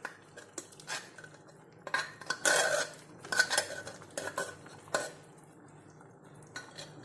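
A spoon scraping and knocking against the inside of a pressure cooker as thick cooked khichdi is scooped out into a pan, in irregular clatters that thin out near the end.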